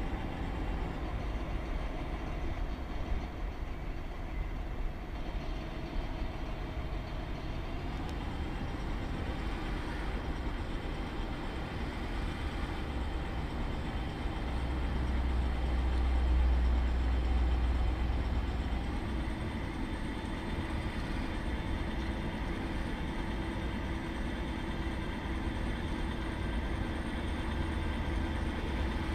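Self-built 1:8 scale hydraulic RC model of a John Deere 9560R tractor running as it pushes sand with its front blade: a steady mechanical whine from its drive and hydraulic pump, rising in pitch about eight seconds in. A low rumble lies under it and swells for a few seconds in the middle.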